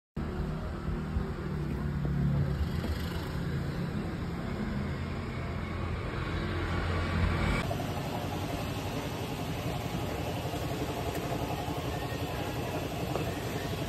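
Steady road-traffic noise with a vehicle engine heard in the first several seconds, then an abrupt change to a lighter steady background about halfway through.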